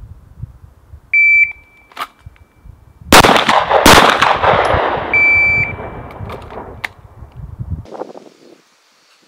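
An electronic shot timer beeps about a second in. Two pistol shots follow, under a second apart, echoing as they fade. The timer beeps again about four seconds after the first beep, marking the end of a 4-second par time.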